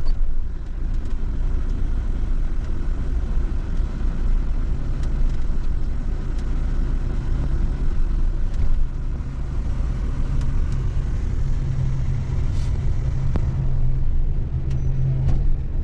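Motorhome driving slowly onto a car ferry: a steady low engine and rolling rumble, with an engine hum that strengthens after about ten seconds and a couple of light knocks near the end.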